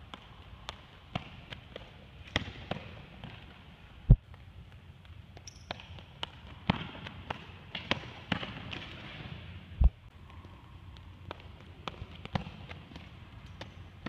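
Footfalls and scattered sharp knocks on a hardwood gymnasium floor during javelin run-ups and throws, with two much louder low thumps about six seconds apart.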